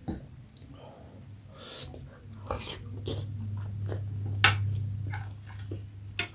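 Eating jhol momo: chewing and slurping with short scattered clicks. A low steady hum comes in about two and a half seconds in.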